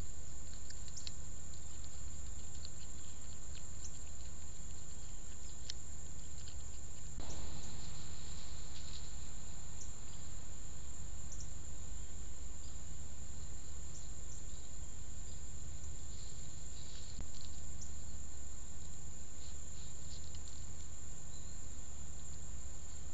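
Trail-camera outdoor ambience: a steady low hum and a thin constant high whine, with faint scattered ticks and insect chirps. About seven seconds in, the background noise steps up abruptly where one recording gives way to the next.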